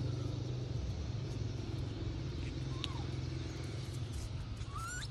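Steady low mechanical rumble of a running motor, with a short high chirp about three seconds in and a brief rising squeak near the end.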